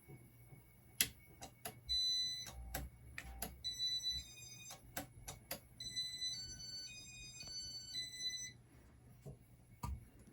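Several sharp clicks, then a run of high electronic beeps that step up and down in pitch like a short tune, fading out over a few seconds.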